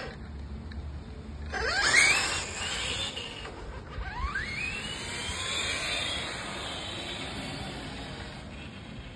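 Electric motor and gear whine of a Traxxas TRX-4 RC crawler as it accelerates. The pitch rises sharply about two seconds in, and again about four seconds in, where it then holds high and fades out. The owner thinks the whine comes from how the motor sits on the spur gear.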